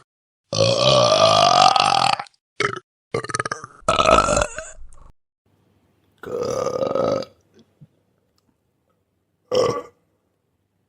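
A series of about six human burps with silent gaps between them. The first is long and rises in pitch; the rest are shorter, the last a brief one near the end.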